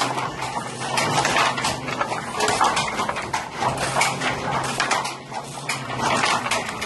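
Wooden handloom clattering in use: quick, irregular knocks and rattles several times a second.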